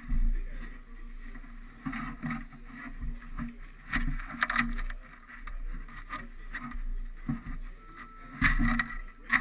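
Knocks and rubbing on a bobsleigh's body and a padded jacket rustling as a man climbs into and settles in the seat, heard through a camera fixed to the sled; the knocks come irregularly, the loudest near the start, about four seconds in and near the end.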